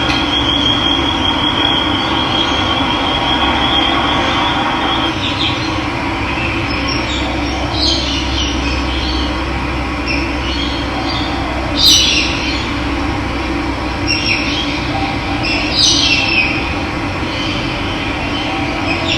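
Steady rush of running water, with birds calling over it: a rapid trill for the first few seconds, then scattered short chirps.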